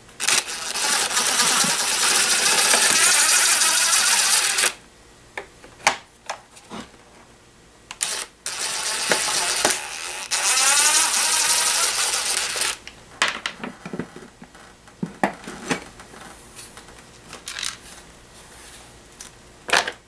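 Cordless impact driver running in two spells of about four seconds each, backing T20 Torx screws out of a vacuum cleaner's motor housing. Light clicks and knocks follow in the second half.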